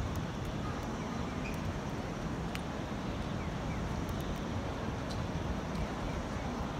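Steady city ambience: distant road traffic, with wind buffeting the microphone.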